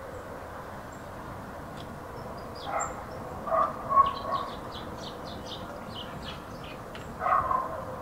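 Village outdoor ambience: small birds chirping in quick high notes over a steady background hiss, with a dog barking in the distance several times, in a cluster around three to four seconds in and once more near the end.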